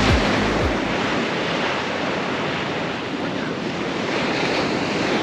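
Sea surf washing steadily onto a sandy beach, with some wind on the microphone.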